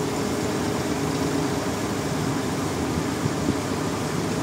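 Sawmill machinery running with a steady, even drone and no distinct strokes or impacts.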